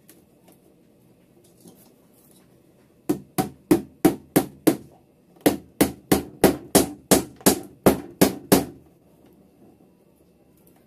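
Small glass nails being tapped into plywood with a pair of pliers used as a hammer. A run of about six sharp strikes, a short pause, then about ten more, roughly three a second.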